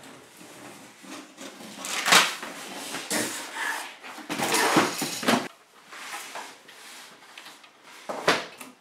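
Handling noises from unpacking the boxed inflatable kayak: irregular knocks and rustles of cardboard and folded vinyl. The loudest come about two seconds in, around five seconds in, and near the end.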